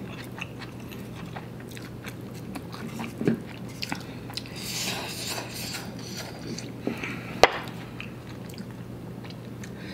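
A person chewing spicy instant noodles close to the microphone, with light clicks of chopsticks against a ceramic bowl and plate and one sharper click a little past the middle. A faint steady hum runs underneath.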